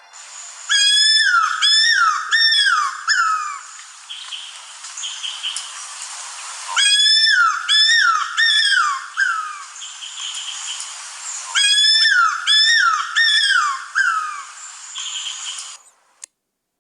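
Cuckoo-roller calling: three series of about five loud, descending whistled notes each, a few seconds apart, over a faint background hiss.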